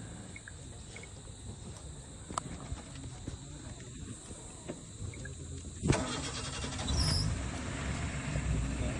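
Vehicle engine running with a low rumble. About six seconds in there is a sharp knock, and after it the rumble is louder.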